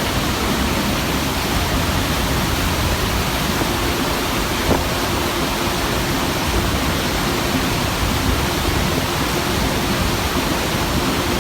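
Iguazú Falls' roar of falling water: a loud, steady rushing noise, with one brief click a little under halfway through.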